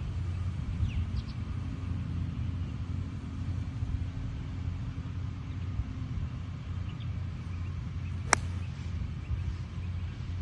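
Wind buffeting the microphone as a steady low rumble, then about eight seconds in a single sharp click of a pitching wedge striking a golf ball.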